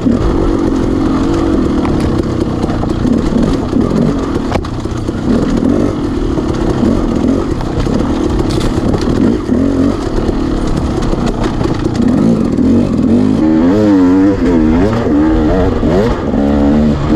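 Off-road motorcycle engine running under varying throttle, its pitch rising and falling constantly, with some clatter. From about 13 seconds in, the revs swing quickly up and down several times.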